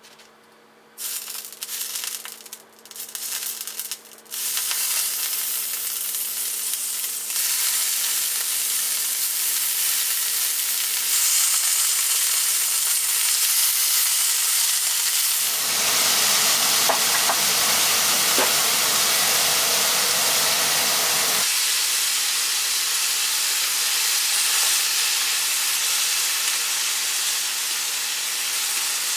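Pieces of beef sizzling in hot oil in a frying pan. The sizzle begins about a second in, in short bursts, then settles into a steady hiss that grows louder, with a fuller, heavier stretch of sizzling in the middle.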